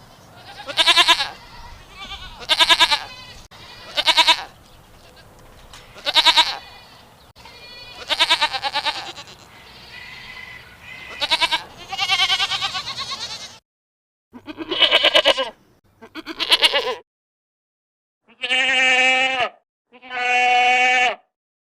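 Goats bleating, about eleven separate wavering calls of roughly a second each, spaced a second or two apart. The last two calls are longer and steadier in pitch.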